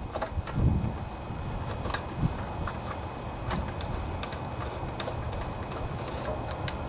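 Scattered, irregular light clicks and taps of small metal parts and tools being handled while a bolt and spacer are fitted under a lawnmower engine's gas tank, over a steady low background rumble.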